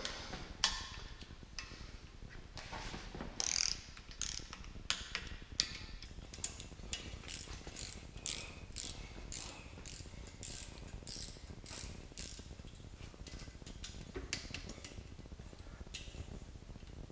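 Ratchet wrench clicking in quick runs as the bolts of a Ford 351 Windsor's camshaft thrust plate are run down and torqued to 12 foot-pounds. The clicks are scattered at first, come thickest in the middle and thin out near the end.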